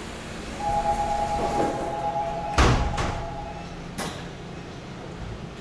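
Subway car door-closing warning: a steady two-tone buzzer sounds for about three seconds. Partway through, the sliding doors shut with a heavy thud, and a lighter clunk follows about a second later.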